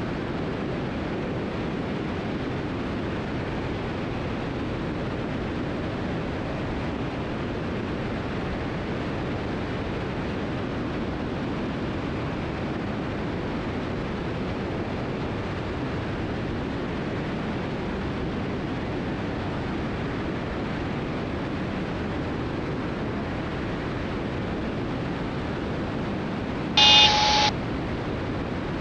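Steady cockpit drone of a Cessna T310R's twin piston engines and airflow in cruise descent, even and unchanging. Near the end a short electronic warning tone sounds once, briefly.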